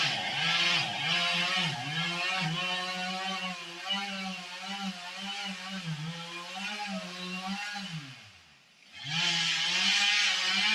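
Two-stroke chainsaw running at high revs while cutting, its pitch wavering as the bar takes load. About eight seconds in the revs fall away and the sound nearly drops out for about a second, then it comes back at full speed.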